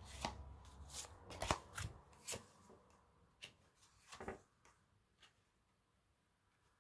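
Tarot cards being shuffled and handled: a quick run of sharp card snaps over the first two seconds or so, then a few scattered taps as cards are drawn and laid down.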